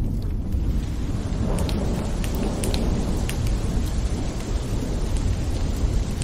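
Steady rain ambience: an even hiss of rainfall with scattered drops ticking, over a continuous deep rumble.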